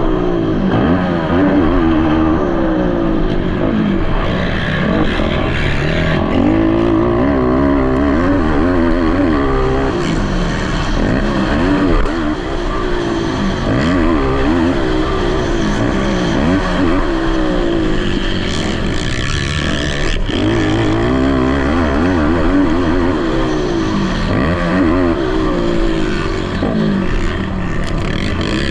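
Racing ATV engines revving hard, the pitch rising and falling again and again through gear changes, several engines overlapping.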